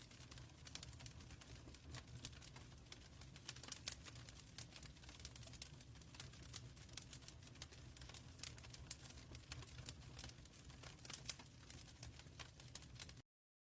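Wood fire crackling in a fireplace: a steady low rumble with many irregular sharp pops and snaps. It cuts off suddenly near the end.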